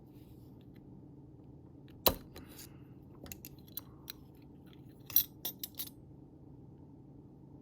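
Small metal parts of a Civivi Aquila folding knife clicking and clinking as it is taken apart. There is one sharp click about two seconds in, a few light ticks after it, and a quick run of clinks around five seconds in.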